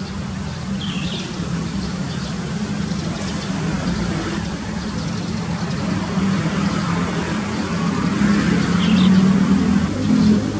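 Low rumble of a vehicle engine or road traffic, building gradually and loudest near the end, with a bird chirping briefly twice.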